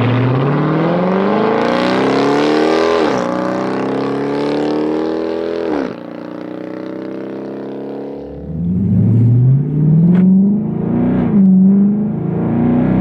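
Dodge Charger's 5.7L Hemi V8 through a Flowmaster Outlaw cat-back exhaust, accelerating hard with its pitch climbing. It shifts up about three seconds in, and near the halfway point it drops off and runs lower. It accelerates again with a couple of brief lifts near the end.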